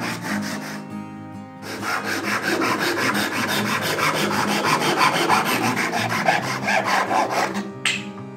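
A Japanese-style pull saw crosscutting a small wooden board in rapid, even strokes. It starts about a second and a half in and stops shortly before the end, as the cut goes through. Soft acoustic guitar music plays underneath.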